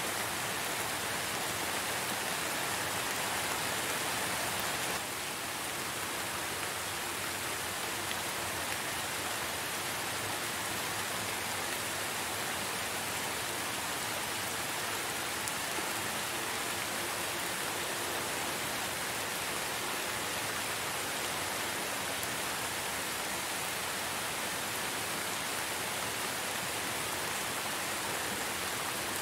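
Steady rain falling as an even, continuous hiss with no distinct drops standing out. It dips slightly in level about five seconds in.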